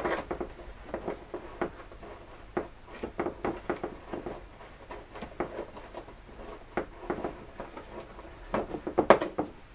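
A socket wrench undoing the last 10 mm bolt of a ZF 5HP18 gearbox's oil pan: irregular small metal clicks and scrapes, with the loudest quick run of clicks near the end.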